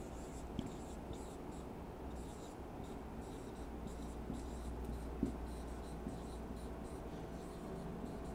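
Marker pen writing on a whiteboard: faint, short repeated strokes, with a light tap about five seconds in.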